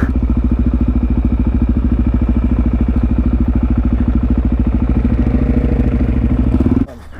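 Supermoto motorcycle engine running at a steady idle with an even, rapid beat, then cutting off suddenly near the end.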